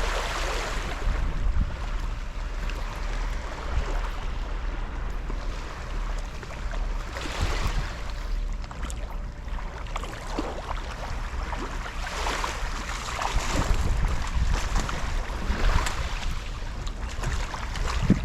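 Wind rumbling on the microphone over the wash of sea water, with surges of hiss every few seconds like waves coming in.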